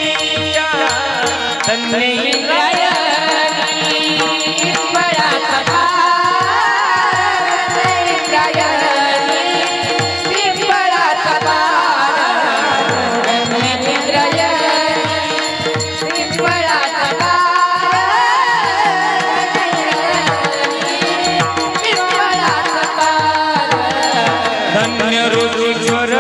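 Devotional kirtan music: voices singing a melody over hand-drum accompaniment with a steady beat.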